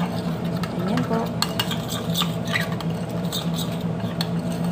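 Metal spoon stirring thick sauce in a ceramic bowl, with irregular light clinks and scrapes of the spoon against the bowl.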